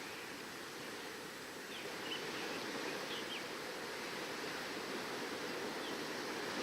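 Sea waves on the shore, a steady even wash, with a few short high bird chirps a couple of seconds in and one more near the end.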